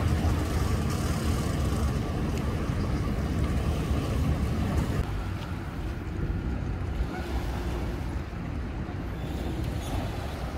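Outdoor boat-ramp ambience: a low rumble of idling boat and vehicle engines, with wind on the microphone and water along the shore. It grows quieter about halfway through.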